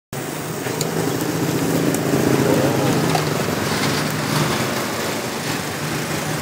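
A small engine or motor running steadily, a low hum with a few faint clicks over it.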